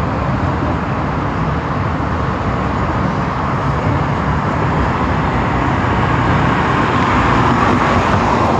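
Steady city street traffic noise from passing cars, swelling a little near the end.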